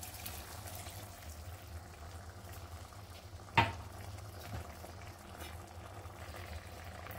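Milk poured into a hot kadhai of grated bottle gourd, then a faint steady simmering as it heats over a high flame. A single sharp knock about three and a half seconds in.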